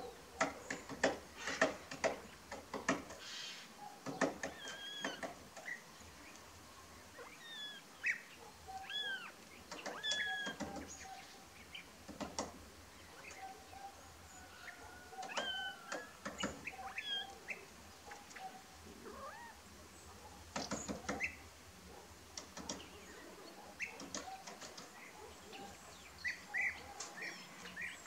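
Grey-headed woodpecker pecking and probing at weathered wooden roof boards: irregular clusters of sharp taps, with short chirps and whistles of birds in the background.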